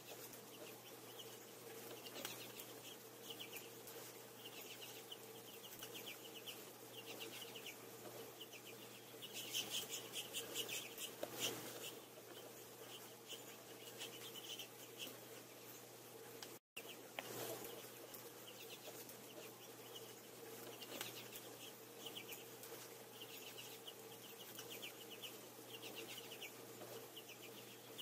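Finches twittering in short, rapid bursts of chatter again and again, busiest about ten seconds in, over a faint steady hum.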